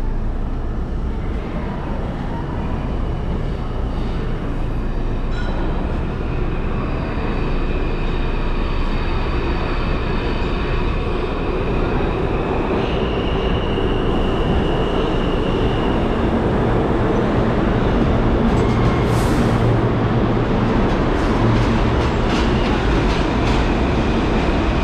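Budd R-32 subway train pulling into a station: a steady rumble of wheels on rail, with high squealing tones over the middle stretch. A short hiss comes about 19 seconds in, followed by a series of sharp clicks near the end.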